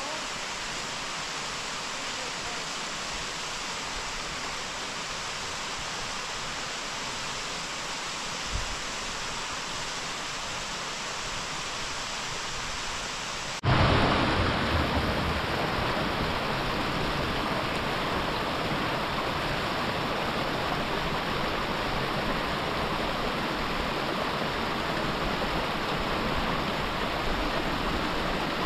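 Steady outdoor rushing noise with no distinct tones, and a soft low knock about eight seconds in. About halfway through it cuts abruptly to a louder, fuller rush.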